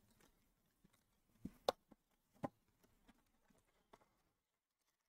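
Faint handling sounds of a cardboard trading-card box being opened by hand: a few soft taps and light rustles, the clearest about a second and a half in and again near two and a half seconds.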